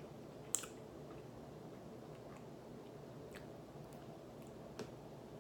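Faint chewing and mouth sounds over a steady low hiss of room noise, with a few short sharp clicks, the clearest about half a second in.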